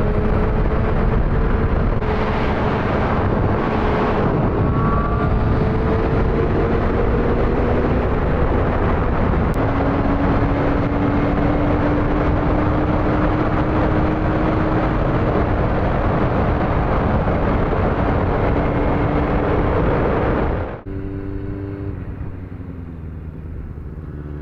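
Motorcycle riding at speed, with heavy wind rush over the microphone under a steady engine tone that slowly climbs in pitch. About 21 seconds in, it cuts suddenly to a quieter motorcycle engine running.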